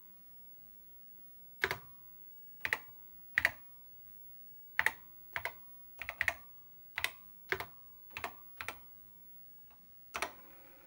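Apple II Plus keyboard keys struck one at a time, about a dozen unhurried keystrokes typing a command, ending with Return about ten seconds in. Right after the last key a floppy disk drive starts to run with a faint steady hum as the program begins to load.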